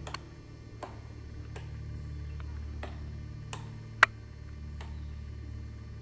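Pileated woodpecker pecking into a tree trunk, chiselling out a hole: single sharp taps at uneven intervals, about one a second, the loudest about four seconds in.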